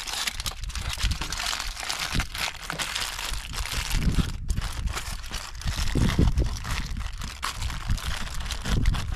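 Aluminium foil crinkling and crackling as it is folded and crimped by hand into a packet around a fish, with a steady run of small crackles.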